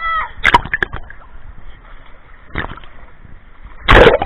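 Seawater splashing and sloshing against a camera held at the surface: a cluster of sharp splashes about half a second in, another around two and a half seconds, and the loudest as a wave washes over the lens near the end. A brief voice calls out at the very start.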